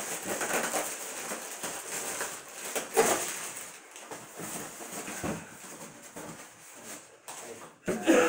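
Styrofoam packing blocks being handled: irregular rubbing, creaking and light knocks of foam and cardboard, loudest about three seconds in and again near the end.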